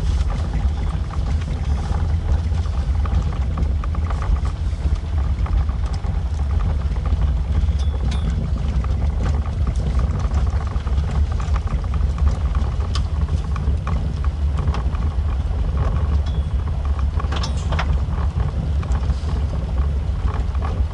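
A vehicle driving along a gravel road: a steady low rumble of engine and tyres on gravel, with a few brief ticks along the way.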